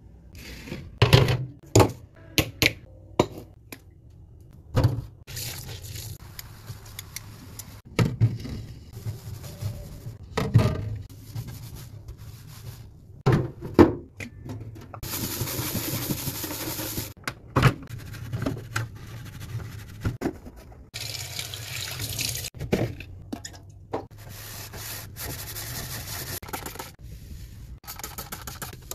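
Tap water running and splashing in short stretches, between sharp knocks and clatter of items being handled, as fridge parts are washed.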